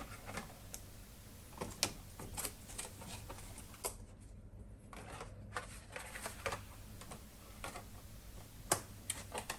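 Faint, irregular light clicks and taps of packaged die-cast toy cars being handled, over a low steady room hum.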